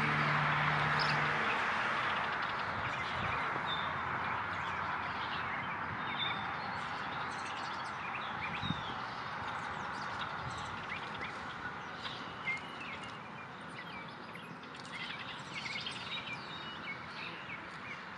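Outdoor ambience of small birds chirping on and off over a steady background hiss, with a low hum in the first second or so.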